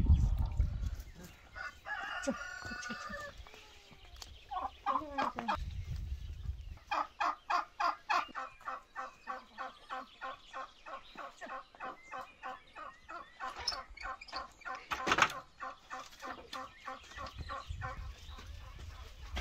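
Domestic fowl calling: a few pitched calls in the first seconds, then a long run of even clucks at about three or four a second. A low rumble sits under the start and returns near the end.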